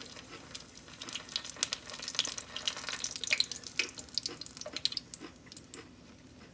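Hot cooking oil crackling and popping irregularly after frying, the pops thinning out toward the end.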